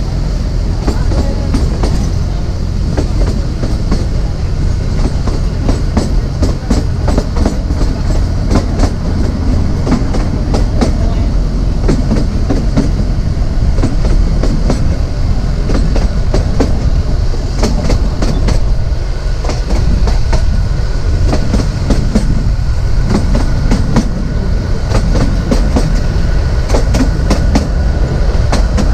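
Narrow gauge passenger train running along the track, heard from on board: a steady low rumble with the wheels clicking and clattering irregularly over the rail joints.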